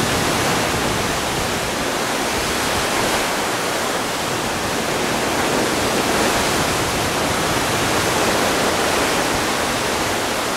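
Sea water rushing and churning along the hull of a moving cruise ship, a steady unbroken rushing noise.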